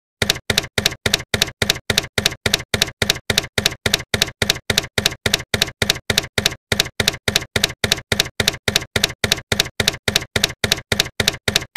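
Typewriter keystroke sound effect typing out on-screen text letter by letter: rapid, even clicks about four a second, with one short pause a little past halfway.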